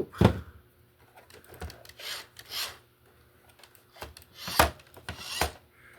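Hard plastic parts of a Roomba robot vacuum being handled and pulled apart: a few sharp clicks and snaps, with a stretch of rubbing and scraping in the middle.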